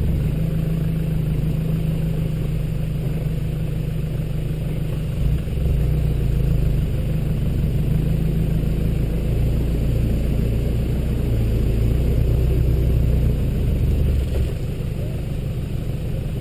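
Toyota Hilux engine running steadily at low revs, picked up close by a camera on the bonnet. The deep drone drops away about fourteen seconds in, as the truck begins creeping forward.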